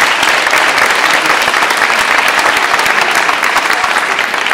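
Audience applauding: many people clapping their hands in a steady, dense patter.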